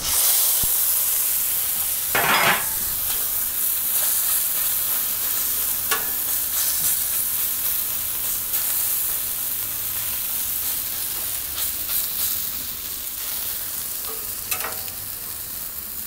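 Chunks of seasoned alligator meat sizzling on an oiled steel flat-top griddle. The sizzle starts suddenly as the meat lands and eases slowly. Three short scrapes of the steel spatula come through it, about two seconds in, about six seconds in, and near the end.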